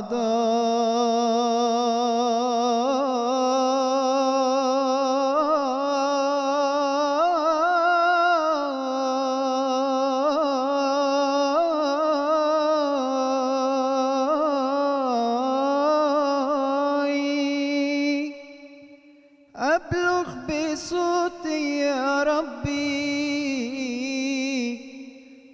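A man's unaccompanied voice singing an Arabic devotional song. He holds one long, wavering melismatic note for about eighteen seconds, breaks off briefly, then resumes with ornamented runs.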